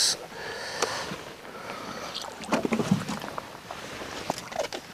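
Scattered clicks and knocks in a small boat as an angler plays a hooked bass and reaches for a landing net, with light splashing from the fish at the surface. A couple of duller thumps come about halfway through.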